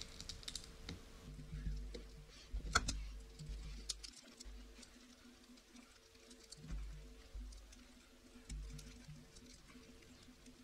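Small clicks and taps of a hand screwdriver and small aluminium RC car parts being handled and screwed together, with a sharper click about three seconds in. A faint steady hum runs underneath.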